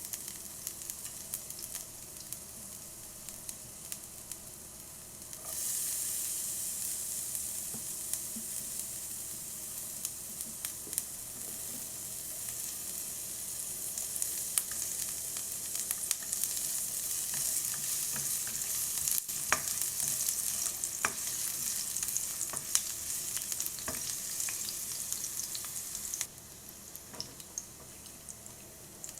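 Food sizzling and crackling in a hot pan, a steady hiss dotted with sharp pops. It gets louder about five seconds in and drops back down near the end.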